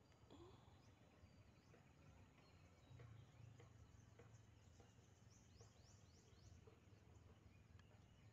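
Near silence: faint outdoor ambience with a low rumble, and a few faint, quick high chirps past the middle.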